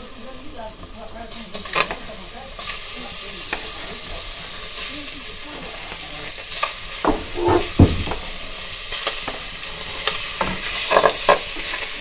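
Cubes of pork belly sizzling as they are pushed into a hot metal pan, the sizzle growing louder as more meat goes in. A few knocks and scrapes come from the plastic spatula against the cutting board and pan, the loudest thump a little before the end.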